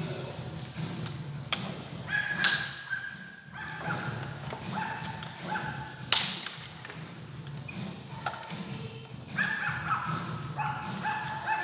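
Sharp knocks and clanks of tools and metal engine parts being handled, the loudest about two and a half and six seconds in, some leaving a brief metallic ring, over a steady low hum.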